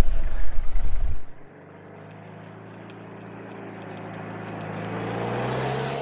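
A loud low rumble for about the first second, then a Toyota Hilux four-wheel-drive approaching on a dirt track, its engine note growing louder and rising slightly in pitch as it nears.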